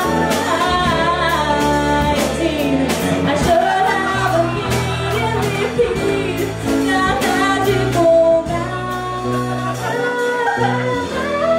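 Live band playing a song, with piano, bass guitar, acoustic guitar and drums behind a woman singing.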